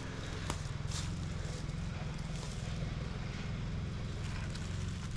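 Footsteps crunching and rustling through dry fallen leaves, with a few faint twig snaps, over a steady low rumble.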